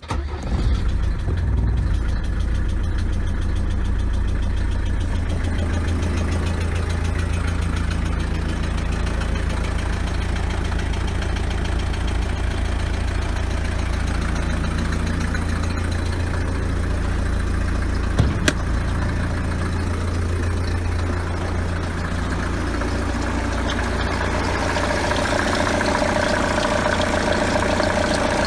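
Mercedes-Benz W124 200D's four-cylinder diesel (OM601) idling steadily, its diesel knock coming through louder and clearer near the end. A brief click about eighteen seconds in.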